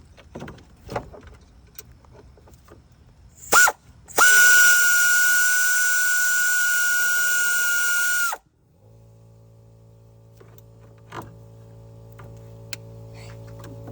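Aircat long-neck 1/4-inch drive air ratchet backing out an engine hoist bracket bolt: a short blip about three and a half seconds in, then a steady high whine for about four seconds that cuts off suddenly. A steady low hum follows.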